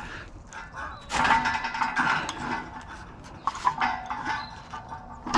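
Metal tools being handled: clinks and rattling scrapes over a faint steady hum, most of it between about one and four seconds in.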